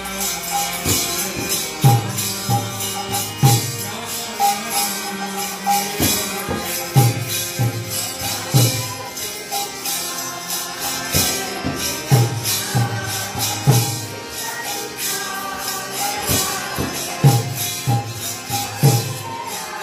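Devotional kirtan music: deep hand-drum strokes in a repeating rhythm over continuous jingling metal percussion, with a held melody line.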